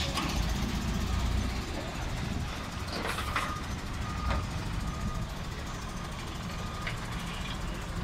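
Minibus engine running as it passes close and pulls away through a flooded street, a little louder at first and then easing off. A few short high beeps sound from about three seconds in.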